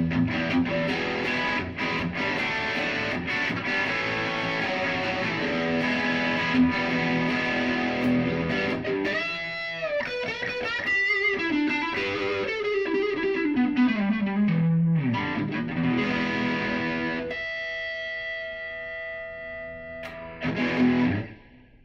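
Fender Telecaster on its bridge pickup, played through a Boss Katana 100 Mk II amplifier on its high-gain lead channel. It plays busy lead riffs, then a run sliding down in pitch, then a long sustained note, and a last burst of notes that cuts off abruptly at the end.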